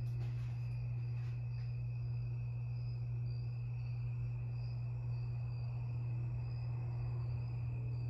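Harbor Breeze Lakeside II ceiling fan motor running with a steady, even low hum. It is stuck on low speed by a bad capacitor. A few faint clicks come in the first second or so.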